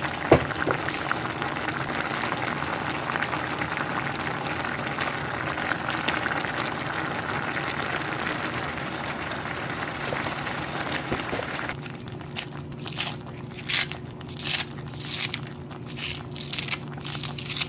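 Spicy baby-octopus stir-fry sizzling and bubbling steadily in a cast-iron braiser, with a sharp click just after the start. About twelve seconds in the sizzle drops away and kitchen scissors snip green onions over the pot, a quick run of crisp snips.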